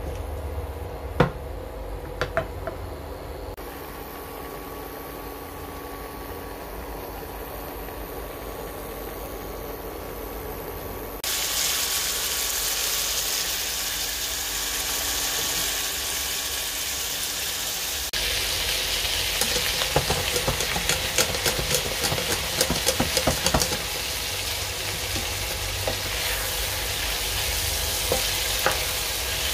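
Pork belly cubes in a nonstick pan being stirred with a wooden spatula: first a quieter simmer with a couple of sharp knocks of the spatula on the pan, then, about a third of the way in, a loud steady sizzle as the pork fries in its own rendered fat. Later there is a stretch of quick clattering and scraping as the pieces are stirred.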